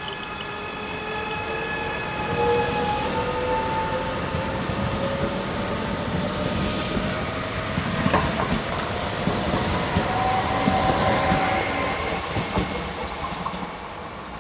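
ETR 425 'Jazz' electric multiple unit passing close by on a curve: its electric drive gives a whine that climbs steadily in pitch as it picks up speed, over the rumble of the wheels, with a few sharp clacks from the wheels over rail joints as the carriages go by.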